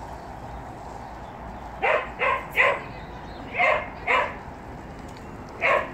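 A dog barking: six short barks, three in quick succession about two seconds in, two more around four seconds, and one near the end.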